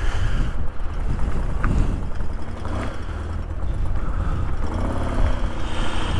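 Motorcycle engine running steadily at low speed while the bike rolls slowly.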